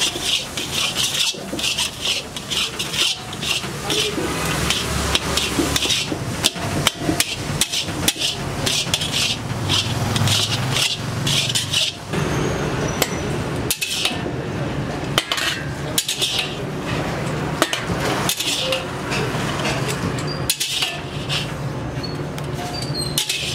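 Metal spatula scraping and knocking against an iron kadai, stroke after stroke, as a thick moong dal filling is stirred and roasted.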